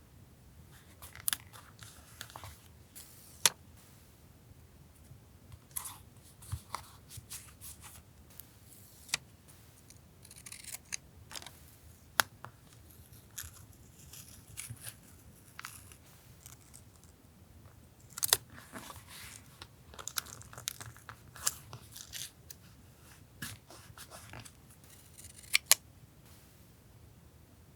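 Paper and stationery being handled for journal collage: scattered sharp taps, clicks and short rustles and crinkles of paper at irregular intervals. A faint steady low refrigerator hum runs underneath.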